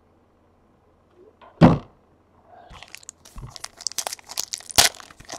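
A single thump about one and a half seconds in, then a foil trading-card pack of 2017 Donruss Baseball being torn open, its wrapper crinkling in quick crackles and rustles.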